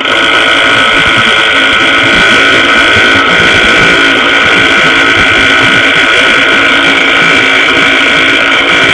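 Impact wrench hammering continuously on a tight lug nut, starting and stopping abruptly with the trigger. The nut is on tight and does not come off easily.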